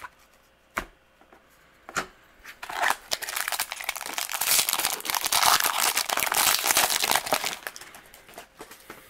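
Foil wrapper of a Bowman baseball card pack being torn open and crinkled: a couple of light taps, then a dense crackling crinkle that starts about three seconds in and dies down near the end.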